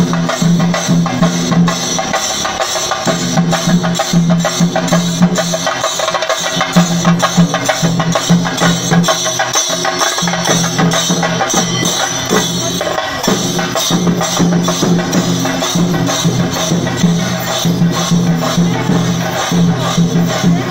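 Chenda drums beaten in dense, rapid strokes as in a Kerala chenda melam, with a steady low note underneath that drops out and comes back several times.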